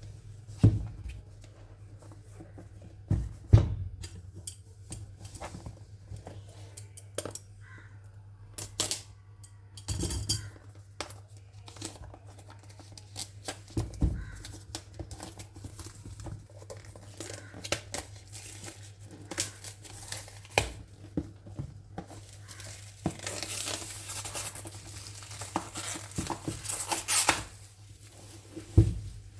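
Keyboard packaging being unboxed by hand: scattered knocks and taps as the box and its parts are handled and set down, and a few seconds of rustling, crinkling wrapping near the end. A steady low hum runs underneath.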